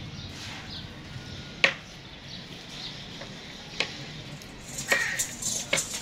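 About four sharp clicks and light clinks, spaced a second or so apart, as goats are held and shift about in a pen, with faint bird chirps near the end.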